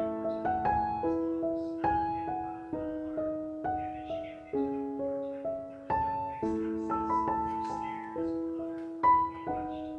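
Gentle background piano music: a slow melody of struck notes that ring and fade over held lower notes.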